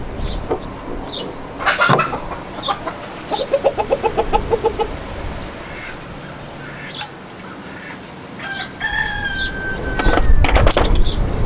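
Chickens clucking, with a rapid run of clucks about three and a half seconds in, short high chirps repeating throughout, and a longer held call near the end.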